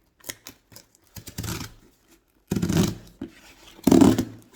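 Cardboard shipping box being torn open: three loud, rasping rips of packing tape or cardboard about a second apart, with small clicks and taps of handling between them.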